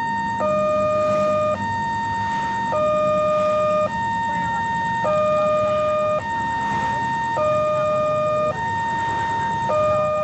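Railway level-crossing warning siren sounding a two-tone alarm, switching between a lower and a higher tone about once a second. It is the signal that a train is approaching and the crossing is closing.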